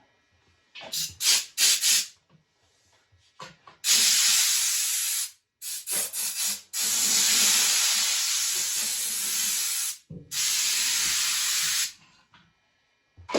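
Compressed air hissing from a nozzle in blasts, blowing sanding dust off a table saw's top. A few quick short puffs come first, then long, steady blasts broken by brief pauses and short puffs.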